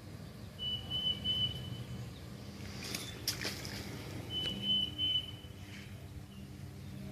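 Two long, steady, high whistled notes a few seconds apart, with a short cluster of sharp clicks between them, over a low steady hum.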